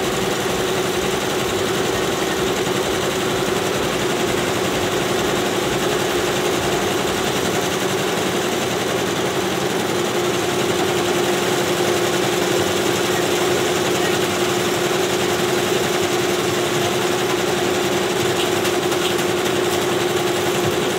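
Commercial multi-head embroidery machines running steadily, a rapid mechanical stitching sound over a constant hum.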